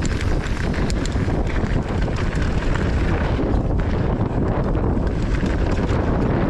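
Wind buffeting the microphone and tyres rumbling over a dirt trail as a mountain bike is ridden downhill, with scattered clicks and rattles from the bike.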